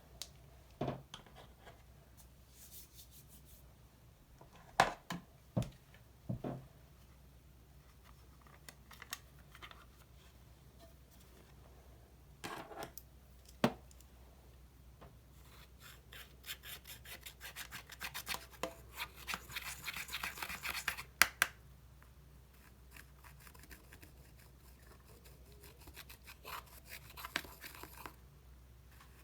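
Slime being worked by hand. There are scattered sharp pops and clicks at first. From about halfway, a long run of rapid crackling clicks follows, loudest a little past the middle, typical of air bubbles popping as slime is pressed and stretched.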